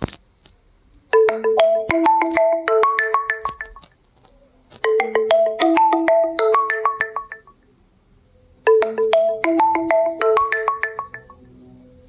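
A phone ringtone: a short melody of quick, bright struck notes, played three times with a pause of about a second between repeats.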